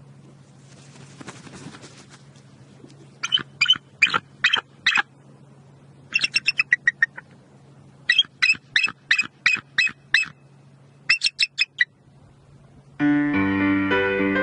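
Bald eagle calling in four runs of rapid, high-pitched piping notes, each run a quick series of chirps, over a faint steady hum. Piano music comes in near the end.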